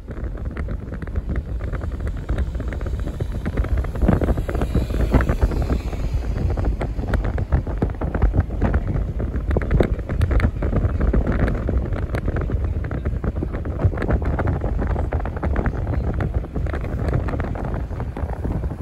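Wind buffeting the microphone of a moving car, over the low rumble of the car and its tyres on hard beach sand; the buffeting grows louder about four seconds in.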